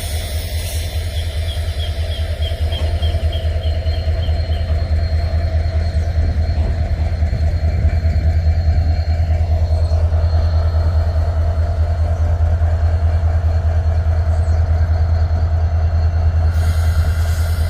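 Freight train rolling past with a loud, steady low rumble. A short run of light ticks comes about a second in.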